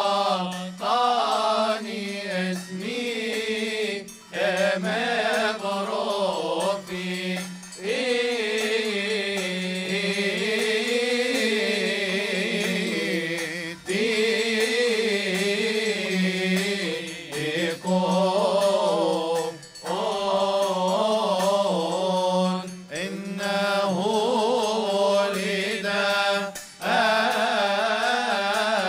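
Male choir chanting a Coptic hymn in long, melismatic unison phrases over a steady low held note, with Coptic hand cymbals ringing along.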